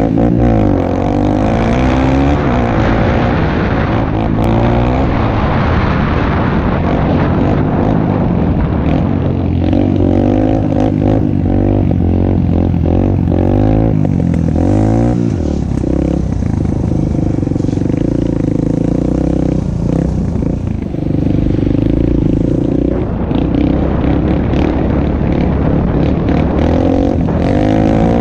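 Suzuki DR-Z125L dirt bike's small single-cylinder four-stroke engine running under way on a trail, its revs repeatedly climbing and dropping, with scattered clatter.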